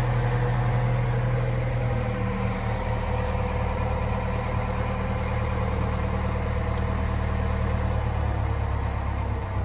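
Narrowboat engine running steadily at low revs, a steady low hum.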